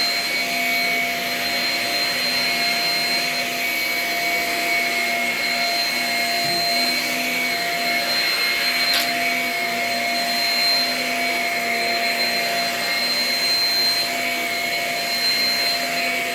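Shark Rocket self-cleaning vacuum running steadily, its motor giving an even, high whine over a rush of air, with a light click about nine seconds in.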